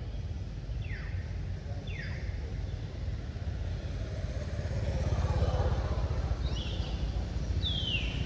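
Low rumble of a road vehicle, louder about halfway through as it passes, with four short high chirps, each falling in pitch.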